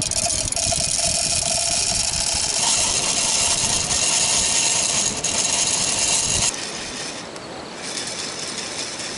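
Raw green coffee beans rattling and tumbling inside a handheld metal bean roaster that is shaken over a gas camp stove, early in the roast. It is a dense, steady rattle that turns quieter about six and a half seconds in.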